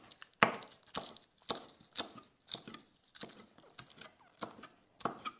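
Chef's knife slicing through spring onions onto a plastic cutting board: short crisp cuts, about two a second.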